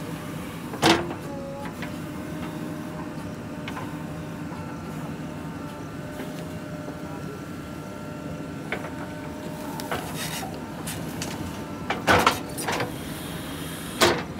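JCB 3DX backhoe loader's diesel engine running steadily while it digs, with a faint steady whine above the engine. A few sharp knocks break through, one near the start and two near the end.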